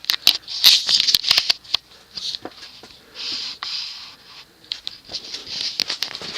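Handling noise: irregular clicks, taps and scraping rustles.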